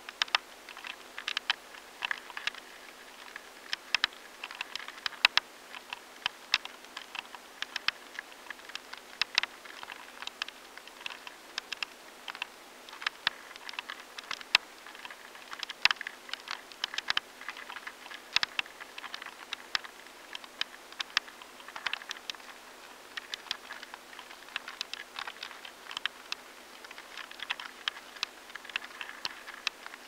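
Grain weevil (Sitophilus granarius) larvae inside barley kernels, picked up by a high-sensitivity sensor: irregular dry clicks and crackles, several a second in uneven clusters, the sound of the larvae feeding in the grain. A faint steady hum lies underneath.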